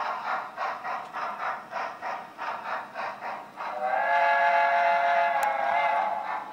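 Sound decoder of a Broadway Limited HO-scale USRA light Mikado (2-8-2) steam locomotive playing slow steam exhaust chuffs, about four a second. A little past halfway a sustained multi-note steam whistle sounds for about two seconds, louder than the chuffs, then the chuffing carries on.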